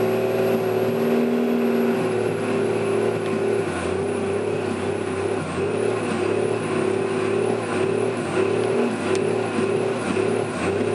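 Dodge Ram's Cummins turbo diesel idling with a steady whine over it; from about three and a half seconds in, the whine rises and falls in a regular wavering pattern.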